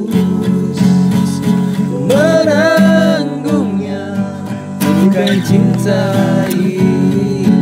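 Acoustic guitar strummed, with a voice holding a long, wavering note about two seconds in.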